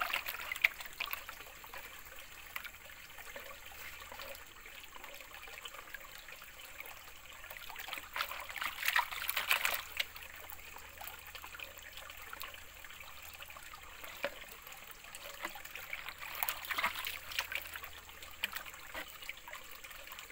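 Water sloshing and splashing in a plastic gold pan as it is swirled and dipped in shallow stream water, washing gravel out over the riffles. The splashing comes in louder bursts at the start, about halfway through, and again near the end.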